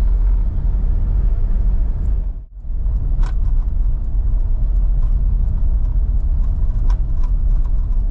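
Steady low rumble of a car on the road, dropping out briefly about two and a half seconds in, with a few faint clicks.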